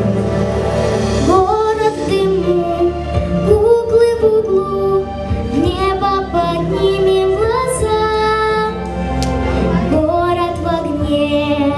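A young female voice singing a sustained, gliding melody over a backing track. The voice comes in about a second in.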